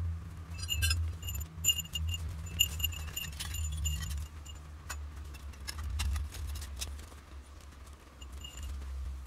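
Metal tarp poles clinking and jangling as they are handled. The bright metallic chinks come in clusters, over a steady low rumble.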